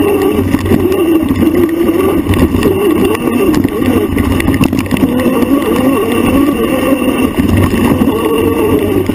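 A trail vehicle's motor running, its pitch rising and falling continually with the riding speed. Rattles and knocks come from riding over rough ground, thickest in the middle.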